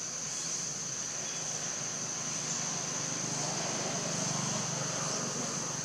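Steady high-pitched insect drone over a low, steady outdoor rumble.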